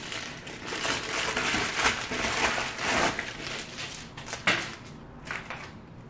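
Plastic bubble mailer crinkling and rustling as it is torn open by hand, then a few sharp crackles as the contents in a clear plastic clamshell are pulled out.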